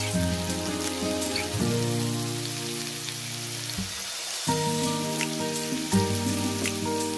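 Steady hiss of rain with scattered droplet ticks, over music of sustained chords that change every second or so, with a brief drop-out around four seconds in.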